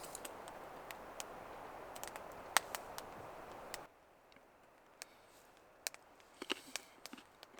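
Light rain falling steadily, with sharp drips ticking in, which cuts off abruptly about four seconds in; after that only small scattered clicks and taps.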